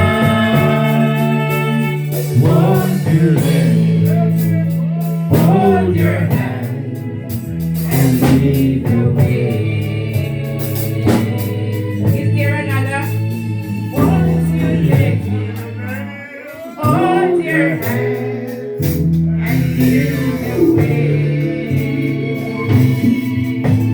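Gospel song: a man singing over instrumental backing, with sustained bass notes and regular drum hits.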